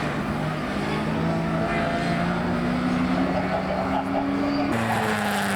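Classic racing car engine running at speed on the track, its note climbing steadily as it accelerates. About four and a half seconds in the sound changes abruptly, with more hiss and an engine note that falls in pitch.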